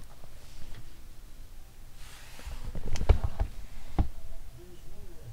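Handling noise of a small portable speaker and its clear plastic box: a soft rustle, then a cluster of knocks about three seconds in and a single sharp click about a second later.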